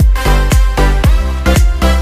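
Electronic dance music with a steady, driving beat of about four strokes a second.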